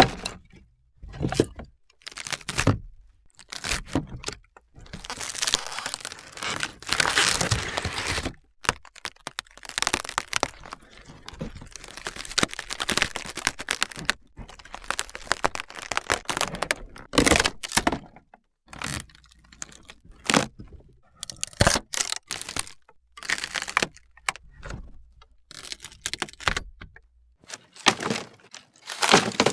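Wood cracking and splintering: a string of irregular sharp snaps and cracks, some single and short, others drawn out into a crackling tear lasting a second or two.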